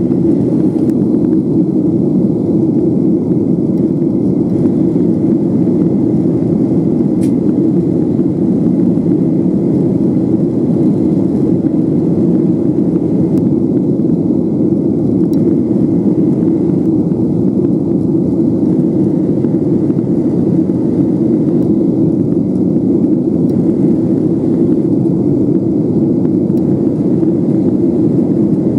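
Steady cabin noise of a Boeing 737-800 in flight, heard inside the cabin: a low, even drone of its CFM56 jet engines mixed with rushing airflow.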